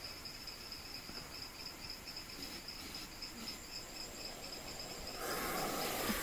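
Insects chirring: a steady, finely pulsing high note. About five seconds in, a louder rushing hiss rises as both snakes are seized.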